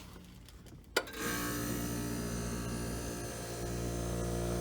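1960s Emerson Quiet Kool window air conditioner kicking on with a sharp click about a second in, then its compressor and fan running with a steady electric hum and blowing air.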